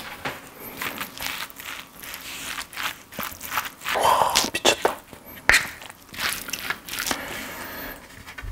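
Wooden spoon mixing rice with a seasoned cockle topping in a large ceramic bowl: irregular sticky, squishing stirring sounds with clicks and scrapes of the spoon against the bowl.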